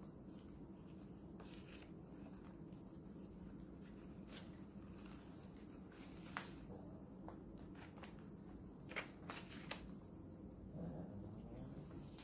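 Paper pages of a ring-bound handmade journal being turned and handled, with a few soft, scattered rustles and flicks.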